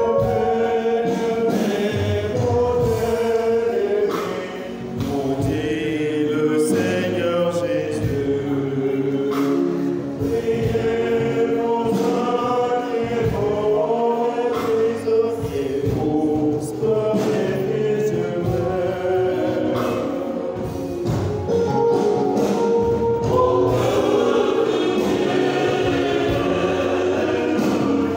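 Mixed choir of men and women singing a religious song.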